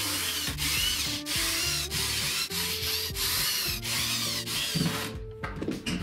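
Red cordless drill driving a screw into the wooden base of a homemade toggle clamp, its motor whining up and down in repeated short pulses with the bit rasping into the wood, stopping about five seconds in.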